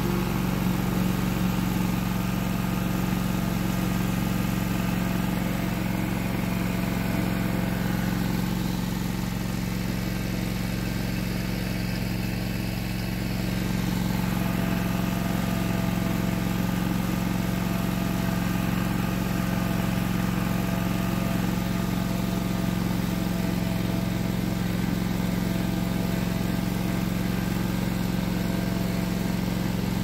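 Air-cooled single-engine Toro mower running steadily while driving, with a low, even hum. It is briefly a little softer around the middle.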